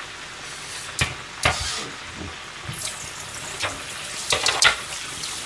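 Oil deep-frying with a steady sizzle, while a metal tray clatters against a stainless steel sink several times. From about halfway through, tap water runs into the sink.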